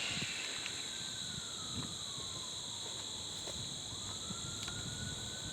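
Insects chirping steadily in a high, even drone, with a faint tone that slides slowly down and then back up again.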